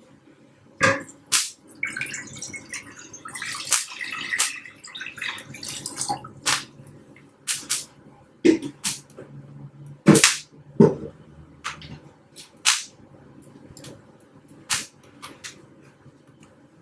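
Water being poured into a pan on a gas stove, splashing for a few seconds, with scattered sharp clicks and pops.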